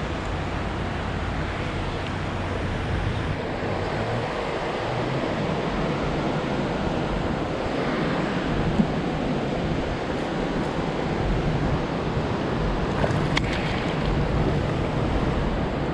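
Steady rushing of wind on the microphone and river water around a kayak. Near the end, a longnose gar splashes and thrashes as it is scooped into a landing net.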